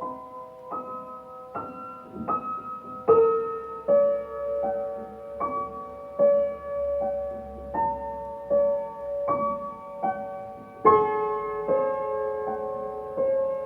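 Background piano music: single notes at a slow, even pace, with fuller chords struck about three seconds in and again near the end.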